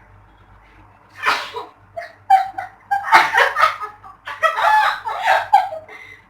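A person sneezes once, about a second in, followed by several seconds of choppy laughter.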